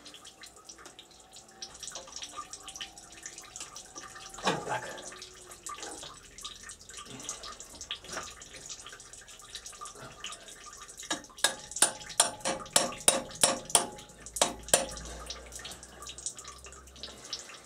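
Used engine oil streaming steadily from the open sump drain into a pan. Past the middle comes a quick run of about a dozen sharp clicks, three or four a second.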